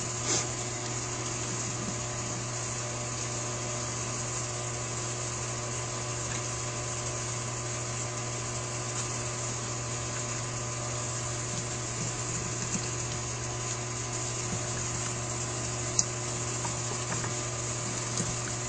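Steady low hum and even hiss of a workshop room, with a few faint clicks of small carburetor parts being handled; one sharper click about 16 seconds in.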